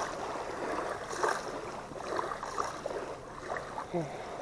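Small waves lapping and washing on a shallow sandy shoreline, in soft irregular swells.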